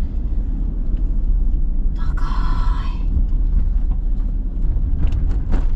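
Steady low rumble of a car on the road, with a short voice-like sound about two seconds in.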